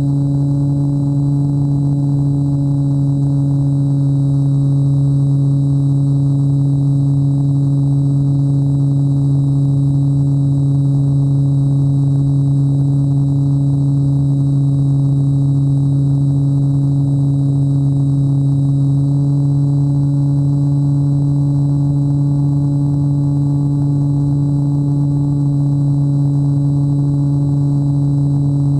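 RC plane's thrust motor and propeller running at a constant throttle: a steady, unchanging drone with rushing air noise, picked up by a camera strapped to the plane.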